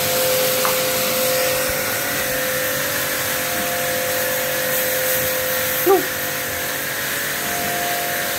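APR electric jet cleaner (high-pressure washer) running steadily: a constant motor and pump tone over the hiss of the water jet. A short, sharp sound cuts in about six seconds in.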